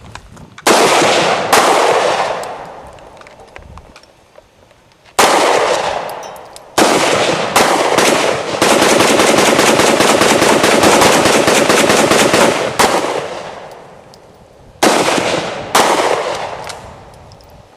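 Gunshots from a semi-automatic pistol, each with a long echoing tail: two shots about a second in, a few more spaced shots, then a rapid run of shots lasting about four seconds, and two final shots near the end.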